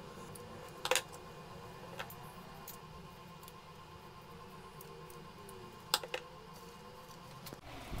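Large scissors snipping through pieces of black rubber: a few sharp snips, the loudest about a second in and again near six seconds, over a faint steady hum.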